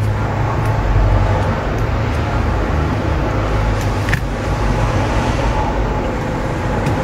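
Steady low rumble of background noise, with a sharp click about four seconds in.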